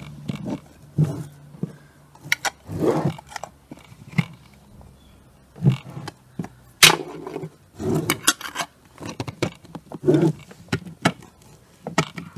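Screw-top lids being twisted tight onto glass jars: a run of about a dozen short, uneven scrapes of lid threads grinding on the glass, with sharp clicks as lids seat and jars are handled.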